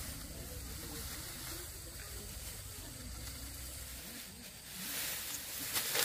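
Cut rice stalks rustling and swishing as they are gathered by hand into a bundle and lifted, with louder rustles near the end.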